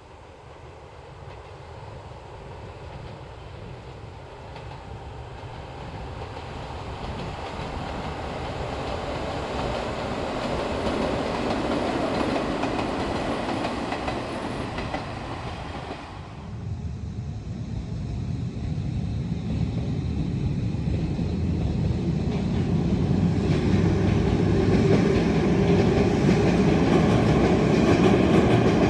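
Izuhakone Railway Daiyuzan Line electric commuter train running on the line, its rumble growing steadily louder as it approaches. About halfway through, the sound drops abruptly, then builds again as a train comes closer, louder than before.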